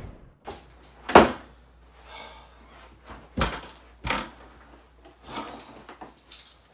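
A handful of short, separate knocks and thumps, the clearest about a second in and two more close together around three and a half to four seconds in, from a man walking about and pulling over and sitting down in a rolling office chair.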